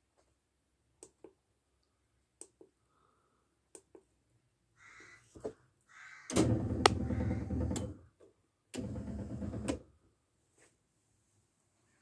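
Several light clicks of push buttons, then the electric lift motor of a barbecue's charcoal tray running in two spells, about a second and a half and then about a second, with a sharp click during the first.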